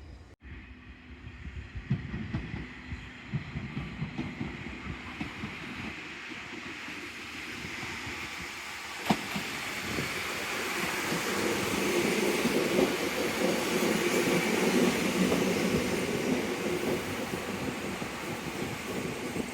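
A train running on rails, with irregular low knocks in the first half and a single sharp click about nine seconds in. From about halfway it grows louder into a steady running noise.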